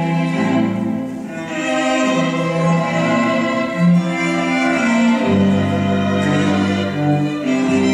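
Orchestral string music: sustained bowed-string notes moving slowly in pitch, with a low cello line coming in about five seconds in.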